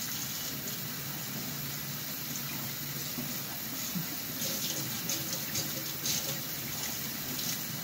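Kitchen faucet running hot water in a steady stream into the sink, with a few small knocks in the second half.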